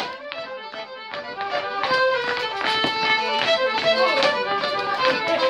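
Fiddle playing a lively traditional tune for rapper sword dancing, with a few sharp clicks over it.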